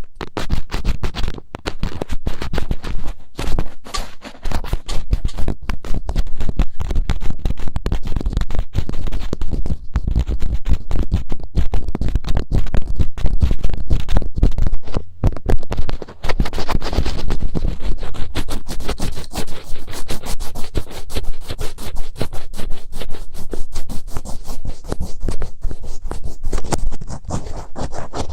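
Fingertips rubbing and scratching directly on a binaural microphone's ears in ASMR finger ear-cleaning: a dense run of quick scratchy strokes with a deep rumble under them.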